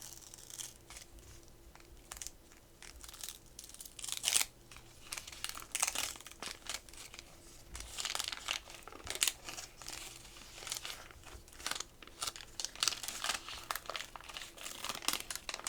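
Wax-paper wrapper of a 1987 Topps Garbage Pail Kids pack crinkling and tearing as it is opened by hand, in irregular bursts of crackle.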